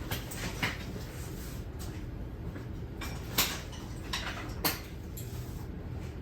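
Locking pins and metal frame of a folding waterfowl blind being handled and set in place: a few sharp clicks and clacks, the loudest about three and a half seconds in, over a steady low hum.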